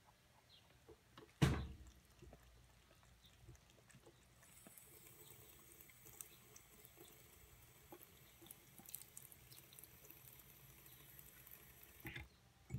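Bathroom sink faucet running as a thin trickle, a faint steady hiss of water falling into the basin that starts about four seconds in and stops near the end. A sharp thump sounds about a second and a half in.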